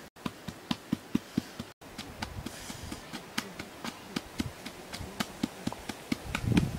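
Pestle pounding in a small mortar, rapid rhythmic knocks at about four a second, with a few louder, duller thumps near the end.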